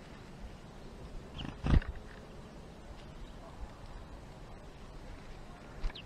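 A single sharp knock a little under two seconds in, with a smaller tap near the end, over a faint steady outdoor background.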